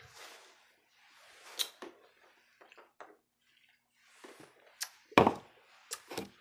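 Beer being chugged from a can, with gulps and breaths and several sharp knocks. The loudest knock is a thump about five seconds in.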